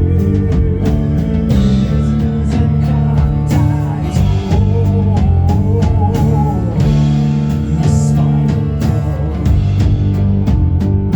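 A rock band playing live, with guitars over a steady drum beat.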